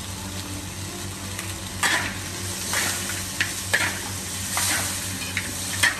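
Food sizzling and crackling in hot oil in a large wok while a metal spatula stirs and scrapes it, with several short scraping strokes.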